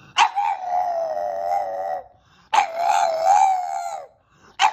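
French bulldog howling: two long, slightly wavering howls of about one and a half to two seconds each, each starting abruptly, with a third howl beginning right at the end.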